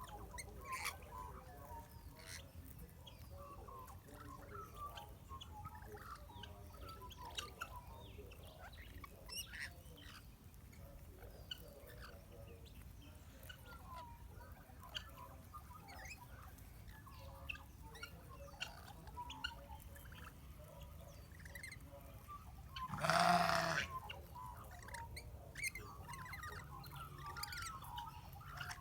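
Parrots making soft chirps and small scattered clicks while eating biscuits, with one loud, harsh squawk about three quarters of the way through.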